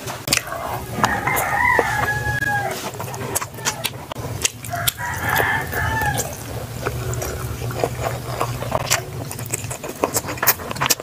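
Rooster crowing twice, each crow a long call lasting over a second, over the sharp clicks and smacks of someone eating.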